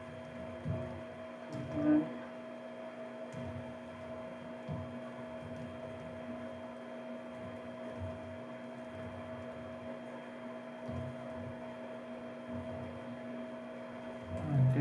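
Steady electrical hum with two constant tones, faint irregular low bumps underneath, and one brief louder sound about two seconds in.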